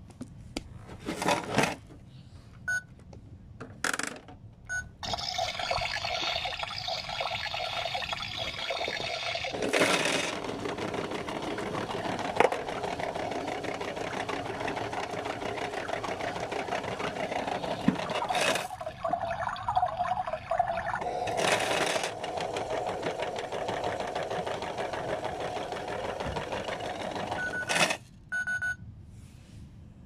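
Kid Connection toy washing machine running a cycle: its small battery motor whirs steadily as the drum turns, from about five seconds in until it stops near the end. A few short beeps come from its control buttons near the start and again near the end.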